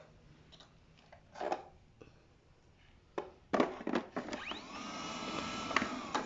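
Abir X6 robot vacuum: a few knocks and clicks, then its motor spins up with a rising whine, runs steadily for about two seconds, and starts to wind down with a falling pitch near the end.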